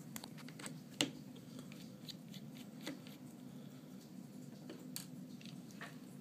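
Small tools clicking and tapping on the opened iPad 2's metal parts and micro screws as the LCD is worked free. The sharpest click comes about a second in and others follow near three and five seconds, over a low steady hum.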